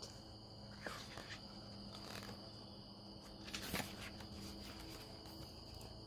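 Faint steady high-pitched trilling of insects, with a soft rustle of a picture book's page being turned about halfway through.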